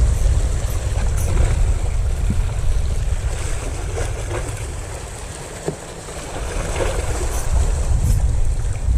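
Wind buffeting the microphone with a gusting low rumble, over the wash of a slightly choppy sea. There is a small click a little past halfway.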